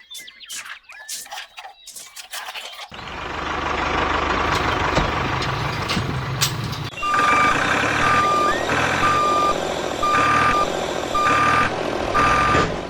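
A vehicle's reversing alarm beeps about once a second over a steadily running engine. The beeping starts about seven seconds in. The first few seconds hold only scattered short clicks and ticks.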